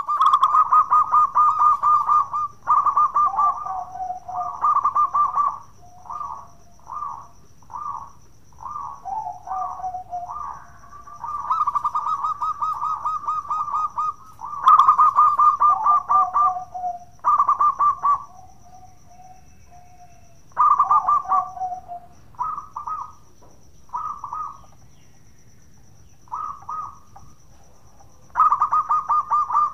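Zebra dove (perkutut) in full song, giving its bekur coo: repeated phrases of rapid trilled coos, many ending on a lower note, with short pauses between.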